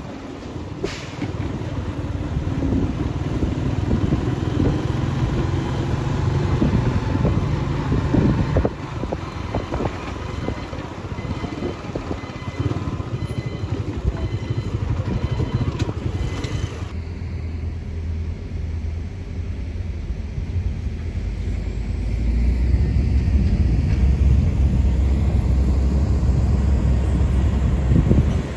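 A motor vehicle's engine runs with a steady low rumble under wind noise on the microphone. The sound changes abruptly about two-thirds of the way through, when the hiss drops away and the low rumble grows heavier.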